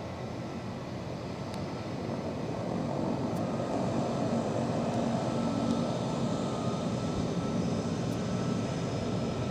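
Twin Pratt & Whitney PT6A turboprop engines of a Beechcraft Super King Air 200 running at taxi power, a steady drone with a faint whine. It grows louder about two to four seconds in as the aircraft taxis closer.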